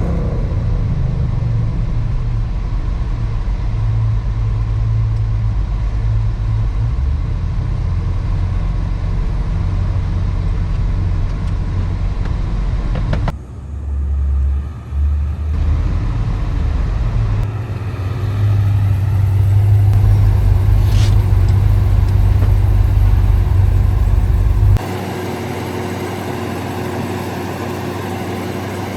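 Supercharged 2010 Chevrolet Camaro SS's V8 engine and exhaust running with a deep, steady rumble. The sound changes abruptly several times, at about 13, 18 and 25 seconds in, and is loudest between about 18 and 25 seconds.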